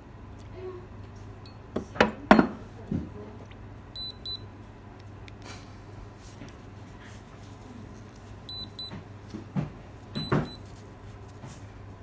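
Electronic fingerprint padlock beeping: three pairs of short high beeps as its sensor is touched, a sign that the doused lock is still powered and responding. Earlier, a few knocks as the wet lock is handled against the wooden tray.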